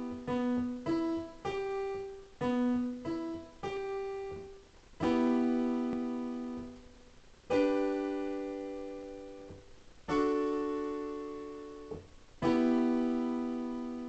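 Piano playing slow right-hand three-note chords: a few short notes first, then four chords about two and a half seconds apart, each struck and left to ring and fade.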